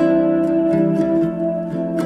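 Instrumental background music: plucked, guitar-like notes ringing over held tones, with a new note struck right at the start.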